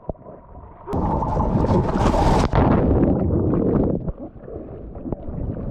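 Sea water splashing and sloshing against the tube of an inflatable Takacat catamaran, heard up close at the waterline. It is muffled for the first second, then loud, with a hissing rush of spray about two seconds in.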